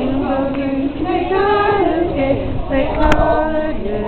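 Group of children and women singing a maypole dance song, with held, gliding notes. A single sharp click about three seconds in.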